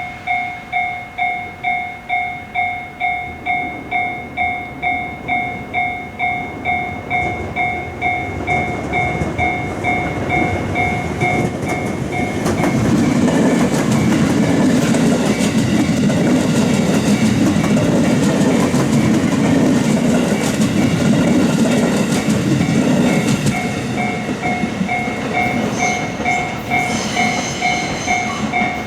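Japanese level-crossing warning bell ringing in a steady kan-kan rhythm, just under two strikes a second. About twelve seconds in, a train passes over the crossing with a loud rumble of wheels on rails that partly covers the bell for about ten seconds. A brief high squeal comes near the end.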